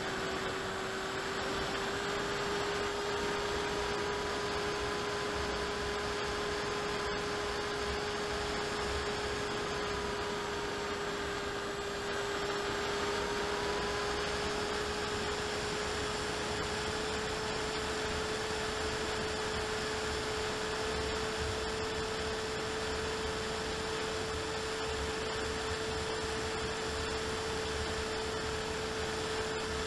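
FPV model aircraft's motor and propeller, recorded by its onboard camera: a steady hum whose pitch creeps slowly upward, over a hiss of wind.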